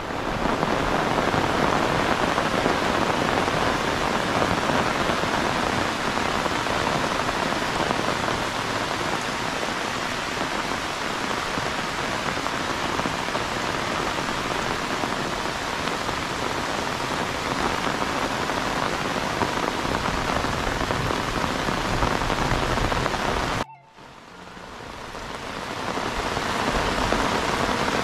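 Heavy rain falling steadily on open ground and standing water, a dense even hiss. About three-quarters of the way through it cuts out abruptly and fades back in over a few seconds.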